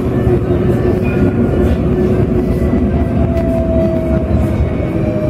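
Alstom Citadis tram running along its track, heard from inside: a steady rumble of wheels on rail with a constant hum, and a thin whine that comes in about three seconds in.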